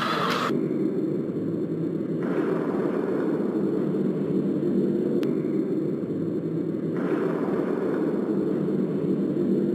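A steady, muffled rumble with little treble, without pauses or distinct hits.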